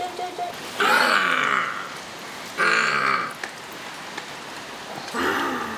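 Water trickling and splashing from a garden hose as it fills a toy water gun, a steady hiss throughout. Over it, a toddler's voice calls out three short times, the loudest sounds.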